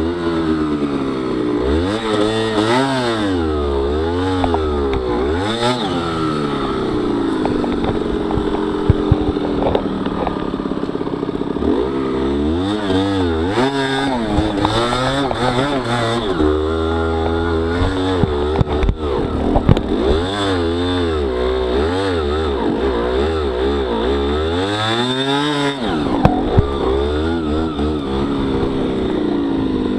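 Honda CRM50 two-stroke single-cylinder dirt bike engine, bored to 63cc, being ridden slowly on a dirt trail. The revs rise and fall every second or two as the throttle is worked, with a few sharp knocks about a third of the way in and again later.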